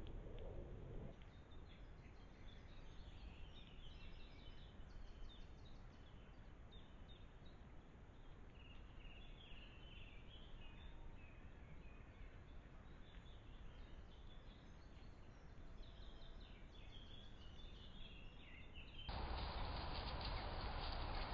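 Small birds singing and chirping in woodland over a steady background hiss. About 19 seconds in, the hiss abruptly turns louder and coarser.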